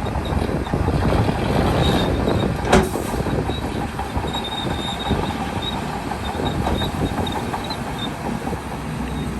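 Bulldozer working: diesel engine running under load while its steel crawler tracks clank and squeal, with one sharp metallic bang about three seconds in.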